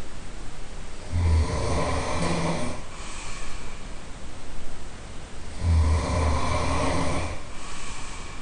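A person snoring heavily: two long, loud snores of about two seconds each, some four seconds apart, with quieter breathing between them.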